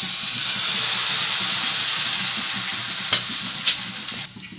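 Thin rice-flour batter sizzling loudly as it is ladled into a hot, oil-greased non-stick frying pan; the steady hiss stops abruptly near the end.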